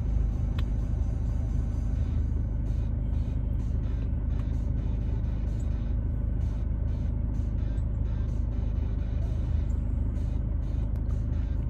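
Car engine and road noise heard from inside the cabin: a steady low rumble.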